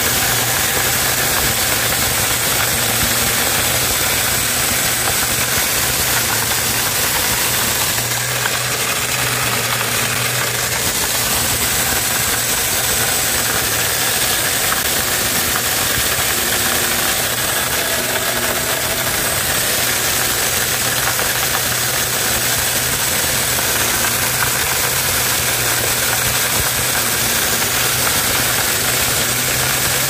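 Homemade corn mill driven by a recycled blender motor, running steadily while its spinning metal paddle smashes dried corn kernels against a strainer screen. It makes a loud, even whirring noise with a steady low hum under it.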